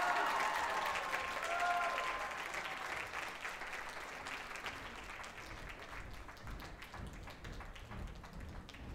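Audience applauding, with a few cheers near the start; the clapping slowly dies away.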